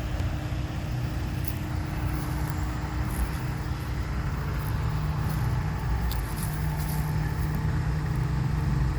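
A motor vehicle running steadily, a low rumble with a faint steady hum.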